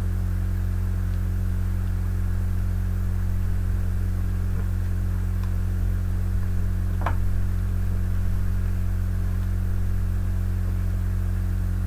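Steady low electrical mains hum. A few faint soft crunches come from chewing a Pop-Tart, the clearest about seven seconds in.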